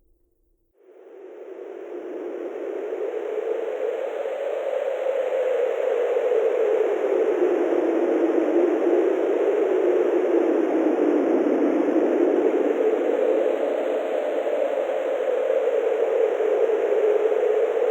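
Wind sound effect: a rushing wind that fades in about a second in and builds over a few seconds to a steady level, its low pitch slowly rising and falling like gusts.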